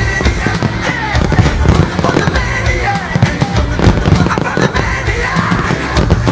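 Fireworks bursting and crackling in quick succession over loud music from a pyromusical soundtrack.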